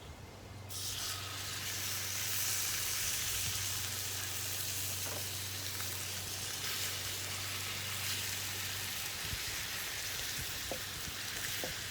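New York strip steaks searing in a very hot cast iron pan of melted butter: a sizzle that starts suddenly about a second in, as the meat goes in, and then holds steady.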